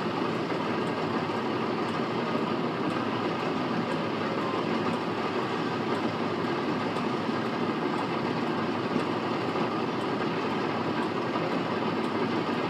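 John Deere 4055 tractor pulling a John Deere 567 round baler through a hayfield, engine and baler running steadily under load, with a faint regular ticking from the machinery.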